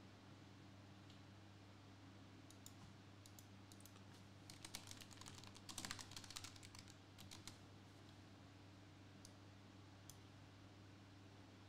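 Typing on a low-profile computer keyboard: a quick run of faint key clicks, densest in the middle, then two single taps near the end.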